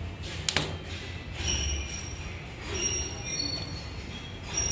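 Small metal clicks and clinks as a battery cable lug and terminal bolt are handled and fitted onto a motorcycle battery, with a sharp click about half a second in and several brief high metallic rings after it.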